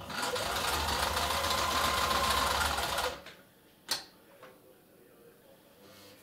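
Kenmore Ultra Stitch 12 sewing machine stitching at speed for about three seconds, its motor whine rising as it gets going and then holding steady, before it stops suddenly. About a second later there is a single sharp click. The machine is running smoothly on its newly fitted motor belt and lug belt.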